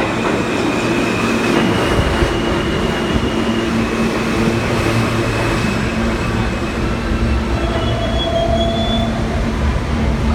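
New York City subway train running along the track at the station, a steady loud rumble with high-pitched wheel squeal held over it and a few steady lower tones.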